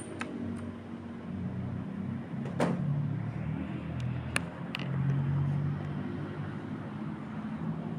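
Mechanical keyboard with clicky Outemu Blue switches: about half a dozen separate keys pressed, each a sharp click, over a steady low hum.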